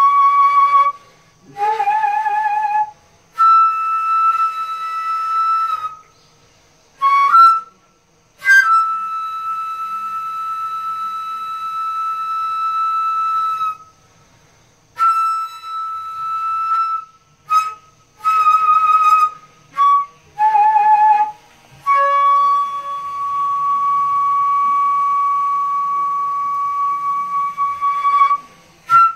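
Solo daegeum, the large Korean transverse bamboo flute, playing a slow melody. Long high notes are held for several seconds, between shorter phrases and a lower note played with a wavering vibrato twice. Brief pauses for breath come between phrases.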